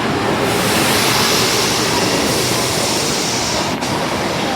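Osaka Metro Tanimachi Line 22 series subway train running, a steady rolling rumble and hiss that swells slightly about half a second in and then holds.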